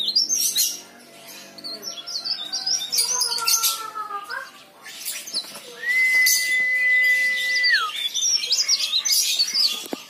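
Caged cikrak daun (leaf warbler) singing in quick runs of high, twittering chirps. About six seconds in, a long steady whistle holds for about two seconds and then slides down.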